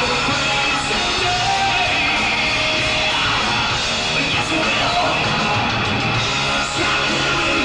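Hard rock / glam metal band playing live, a loud, dense mix of amplified rock instruments with no break.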